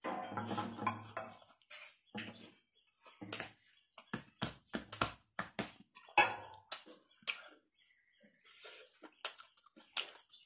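A person chewing a mouthful of rice and fried egg with wet lip smacks and sharp mouth clicks, at times several a second, with a short low hum near the start as a spoonful goes in.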